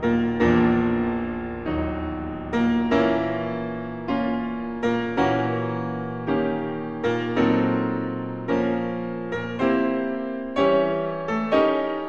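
Background piano music: slow single notes and chords, each struck and left to ring and fade.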